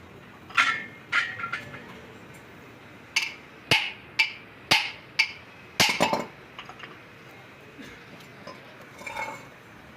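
Sharp metallic clinks and taps, about ten in all, each ringing briefly, from metal tools and parts being handled during work on a turbocharger.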